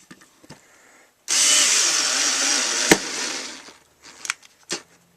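Ryobi Tek4 4-volt cordless screwdriver running at its fast speed setting while driving a screw into wood. The motor starts about a second in and runs steadily for about two and a half seconds, with a sharp click partway through, then winds down.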